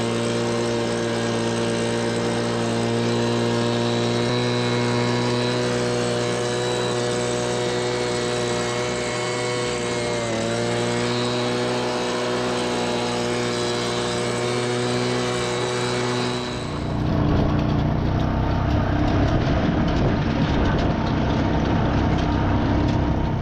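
Tractor engine running at a steady speed, with a brief dip in pitch about ten seconds in. About seventeen seconds in it gives way to a louder, rougher, noisier running sound that cuts off at the end.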